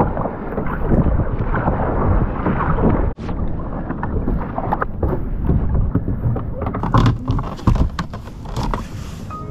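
Water rushing and splashing around a fishing kayak paddled on open sea, with wind buffeting the microphone. Near the end come a few sharp knocks from hands handling gear at the kayak's front hatch.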